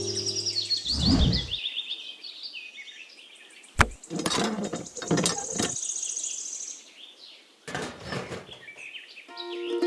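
Birds chirping in quick descending trills, with a low thump about a second in, a sharp click a little before the middle, and a few short rustling noises.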